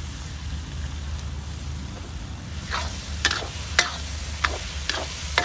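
A long metal spatula stirring okra in a black iron kadhai, clinking and scraping against the pan about six times in the second half. Under it runs a steady frying sizzle.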